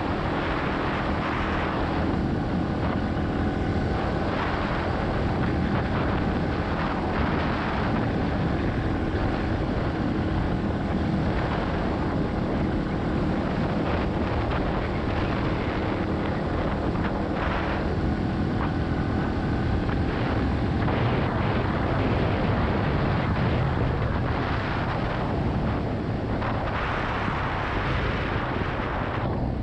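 Yamaha XT250's air-cooled single-cylinder engine running under way, its pitch shifting a little with the throttle, with wind rushing over the microphone.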